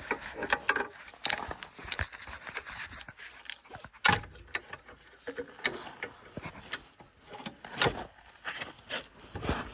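Steel bolt and hardware clinking and knocking against a metal attachment frame as the bolt is fitted: a series of irregular sharp metallic clicks, a few ringing briefly.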